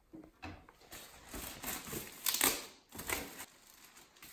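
Plastic wrapping rustling and crinkling as speaker grille panels are handled, in a run of irregular rustles that are loudest about halfway through.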